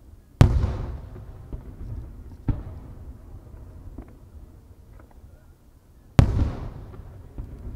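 Aerial firework shells bursting: two loud booms about six seconds apart, each trailing off over about a second, with a smaller bang between them.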